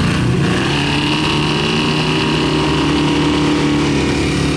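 Truck engine revved hard and held at high revs: a mud-bog recovery, with a tow strap pulling a stuck truck out of deep mud. The pitch stays high and fairly steady, wavering slightly.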